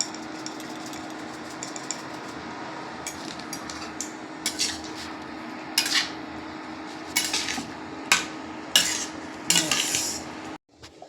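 Metal spoon scraping and clinking against a cooking pan, a handful of sharp scrapes that grow louder in the second half, over a steady low hum; the sound cuts off suddenly near the end.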